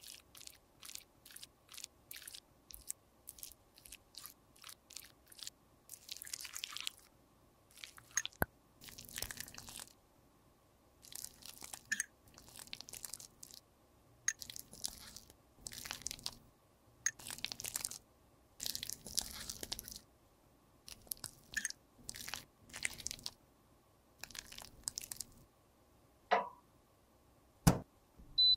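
Close, crisp crunching and scraping as cosmetics are worked over by hand, in short irregular strokes and clicks, with two sharper knocks near the end.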